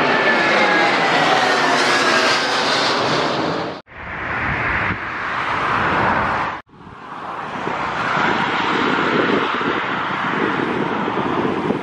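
Boeing 787 jet engines passing overhead on climb-out, a loud roar with whines falling in pitch as it goes away. The sound cuts off abruptly about four seconds in and again near seven seconds, and then comes the steady roar of a Bombardier CS100's Pratt & Whitney geared turbofans at takeoff power on the runway.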